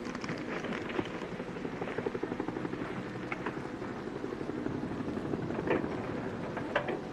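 Helicopter rotor beating steadily in a fast, even pulse, with two sharp clicks near the end.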